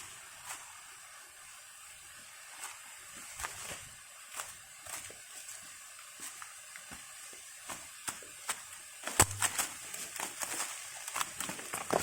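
Footsteps on rough ground while walking down a slope, irregular soft steps about once a second that come faster and louder after about nine seconds, over a faint steady hiss.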